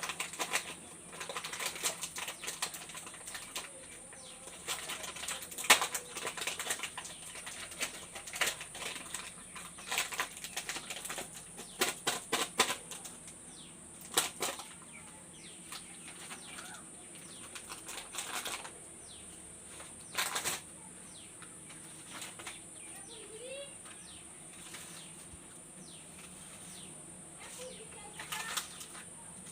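Chocolate and candy wrappers crinkling and crackling as they are handled and torn open, in irregular sharp bursts that are busy at first and thin out after about halfway.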